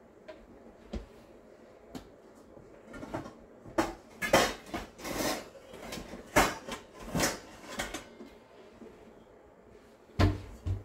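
Kitchen cupboard doors and dishes knocking and clattering as someone rummages off to the side for a bowl. A few single clicks come first, then a run of loud knocks and clinks in the middle, and a heavier thud near the end.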